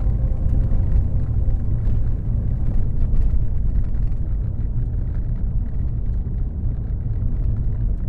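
A Jeep driving along a forest mountain road, heard from its back seat: a steady, loud low rumble of the moving vehicle.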